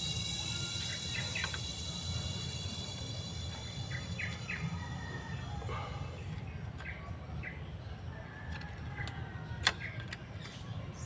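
Birds chirping in short, scattered calls over a steady low hum; a high whine of several steady tones fades out about halfway, and a single sharp click comes near the end.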